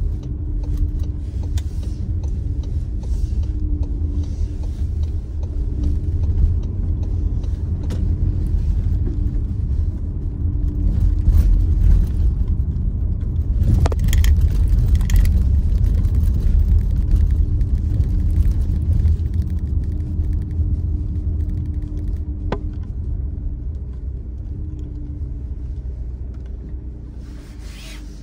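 Engine and road noise of a moving car heard from inside the cabin: a steady low rumble with a hum, fading near the end as the car slows to a stop.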